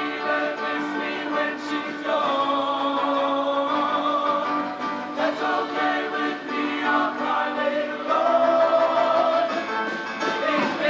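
Show choir singing, male voices holding sustained chords in harmony.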